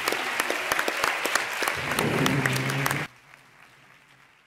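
Audience applauding, a dense patter of many hands clapping that cuts off suddenly about three seconds in.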